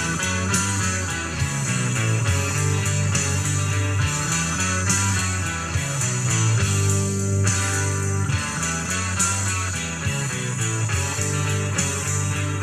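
Dance music with guitar and a steady beat, from a sonidero's live dance mix.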